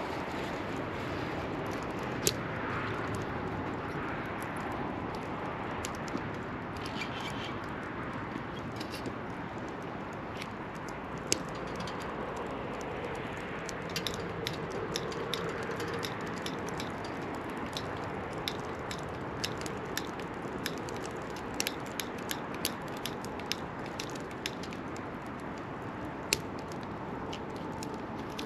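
Wood fire crackling in a fire pit: sharp pops and snaps at irregular intervals, a few much louder ones, over a steady rushing hiss.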